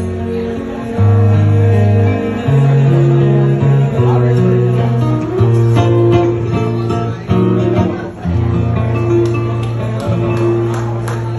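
Acoustic guitar playing an instrumental passage of a romantic ballad over a deep bass line that changes note about every second, with strummed chords towards the end.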